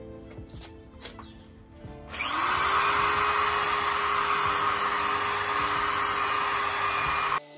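Electric drill spinning a foam polishing pad: it starts about two seconds in, rises quickly in pitch to full speed, runs steadily, and cuts off suddenly near the end.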